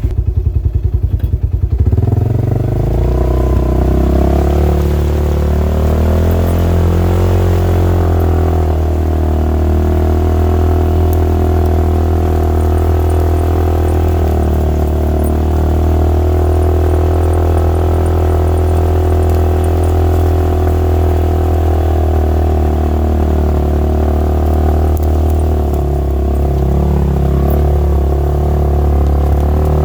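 Polaris RZR side-by-side's engine with a low, evenly pulsing note for about the first two seconds, then picking up slightly and running steadily at low speed.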